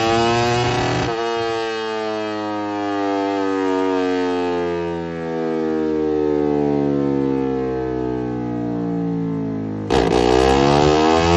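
Yamaha Jupiter single-cylinder four-stroke motorcycle engine with a Creampie CP2 RX racing exhaust, run on a roller dyno: it is at high revs for about a second, then the pitch falls slowly for several seconds as it winds down, and about ten seconds in the throttle opens sharply and the revs climb again.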